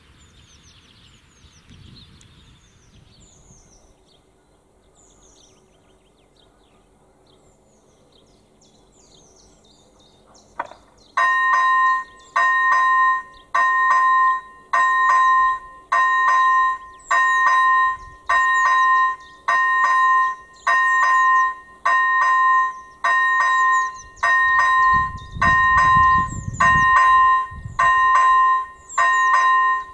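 Electronic level-crossing warning bell (AŽD ZV-01) ringing: a loud two-tone electronic ding that repeats about once a second, starting about a third of the way in. It is the crossing's alarm for an approaching train, sounded as the red lights flash and before the barriers come down.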